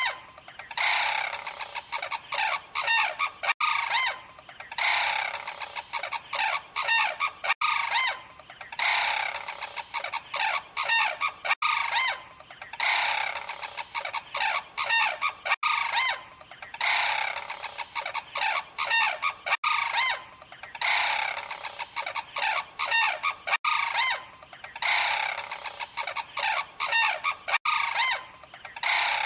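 Crane calls: bursts of rapid, repeated calls, each burst about three seconds long. The same burst repeats in a loop about every four seconds, with short gaps between.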